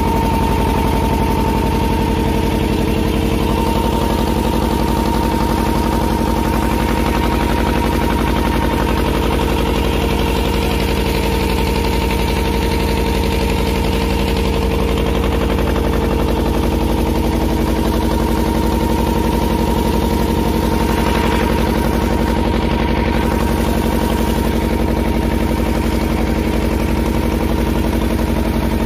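Motor boat's engine running steadily at a constant speed, with a fast, even beat.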